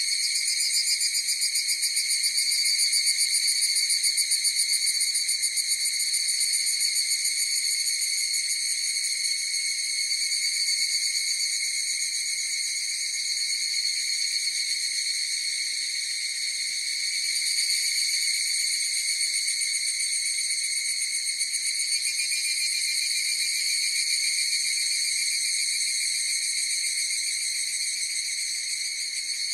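Chorus of higurashi (evening cicadas, Tanna japonensis), many overlapping high-pitched calls blending into one continuous, steady drone.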